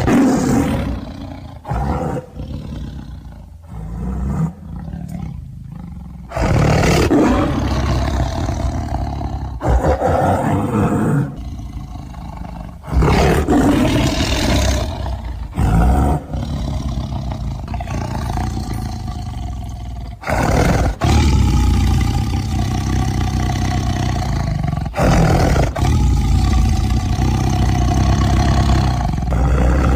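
Tiger roaring and growling over and over, deep and loud. The sound changes abruptly every few seconds, as if separate takes were spliced together.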